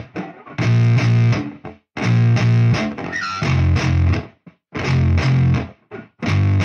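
Background music: a distorted electric guitar and bass riff played in stop-start chunks of about a second, each cut off sharply with a brief silence between.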